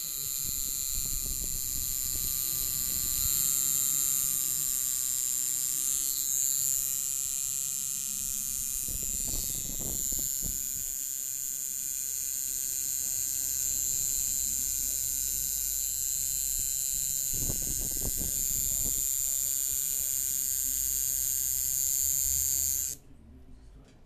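Coil tattoo machine buzzing steadily as it lines a tattoo outline on skin, then switched off suddenly near the end.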